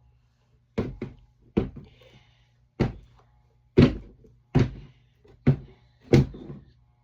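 Squishy toys dropped one after another into a container: about eight dull thunks at irregular intervals.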